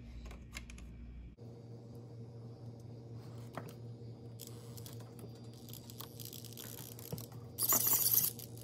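Light plastic clicks and handling noises as a white servo saver is pressed onto an RC truck's steering servo, over a steady low hum that starts about a second and a half in. Near the end, a short loud burst of scraping or rustling is the loudest sound.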